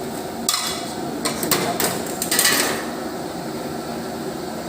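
A metal utensil knocking and scraping against a cooking pot, a cluster of clanks in the first three seconds, over a steady low rumble.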